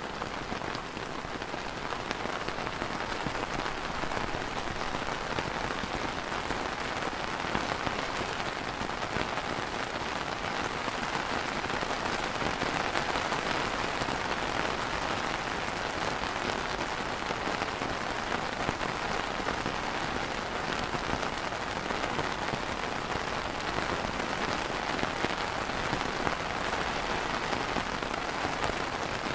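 Light rain falling steadily on an umbrella canopy: an even hiss of many small drops.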